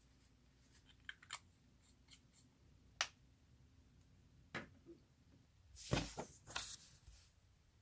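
Hands handling a fountain pen and its plastic packaging: a few sharp, separate clicks, then a short burst of louder rustling and clicking about six seconds in.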